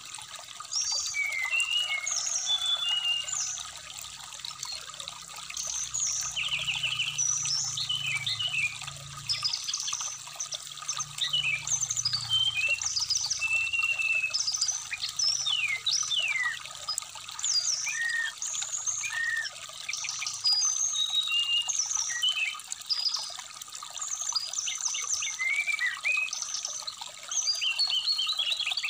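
Brown-chested jungle flycatcher song: quick, varied runs of short chirps and sweeping whistled notes, over the steady trickle of a shallow stream.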